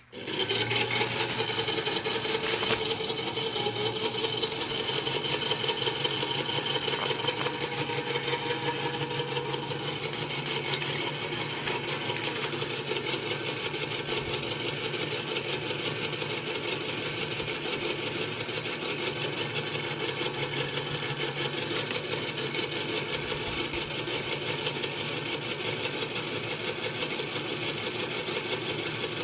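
Small electric motor from an air mattress inflator running a 3D-printed gear reduction that turns a rod on skate bearings: it starts suddenly and then runs with a steady whirr and gear chatter.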